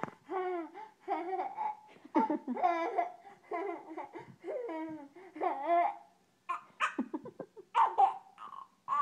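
A young boy laughing and babbling in a high voice, with no clear words; toward the end it breaks into short bursts of laughter.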